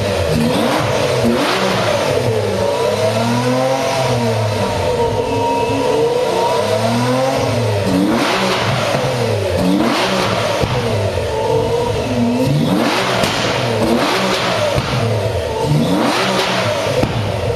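Modified Fiat 500's engine revving through its loud exhaust while standing still, the revs rising and falling every couple of seconds, with a few harder, rasping high-rev blips.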